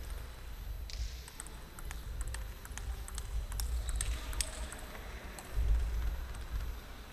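Table tennis ball clicking back and forth between paddles and table in a quick rally, several clicks a second, over a steady low rumble. A dull low thump comes late on.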